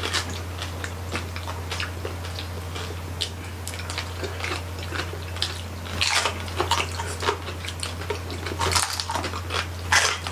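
Several people biting and chewing crispy roasted pig (lechon) close to the microphone: a run of sharp crunches and wet chewing clicks, busier and louder from about six seconds in.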